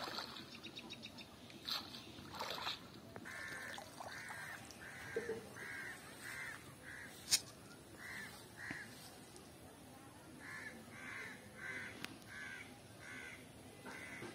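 A bird calling over and over, short similar calls a little under two a second, in two runs with a pause about nine seconds in. A few sharp clicks and knocks come in the first three seconds.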